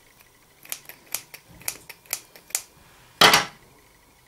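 Scissors snipping several times in quick succession, cutting small pieces off a strip of fluffy fabric. A single louder knock follows a little after three seconds in.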